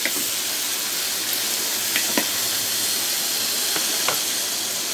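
Chopped onions, tomatoes and chillies sizzling steadily in hot oil in an aluminium pressure cooker pan as they sauté, with a few light clicks of a spoon against the pot.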